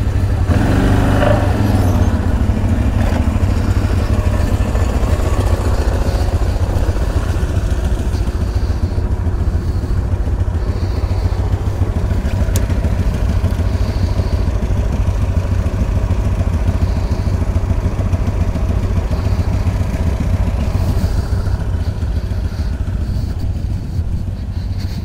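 CFMoto X8 ATV's V-twin engine running steadily, a deep low drone that eases slightly near the end.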